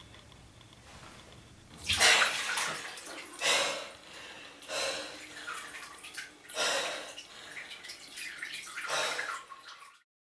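Bath water sloshing and splashing in a filled bathtub as someone moves in it, in about five swells, then cut off suddenly near the end.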